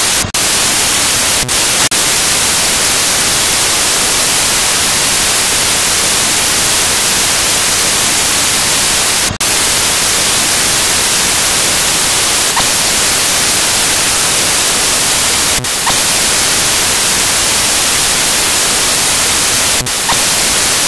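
Loud, steady static hiss like white noise, cutting out for a split second about five times: just after the start, near the 1.5-second mark, around nine seconds in, near sixteen seconds and near twenty seconds.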